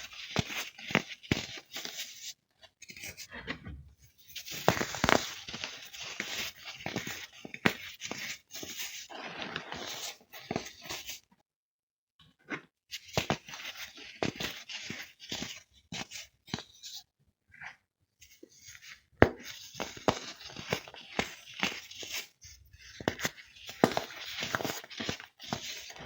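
Crisp blocks of compressed baking soda crunching and crumbling as they are broken apart, in irregular bursts of fine crackling with short pauses, one of about a second near the middle.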